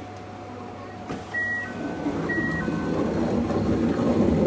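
A two-tone electronic chime, a high note then a lower one, sounds twice about a second and a half in. Under it an electric train rumbles past on the next track, growing louder, and a sharp knock comes right at the end.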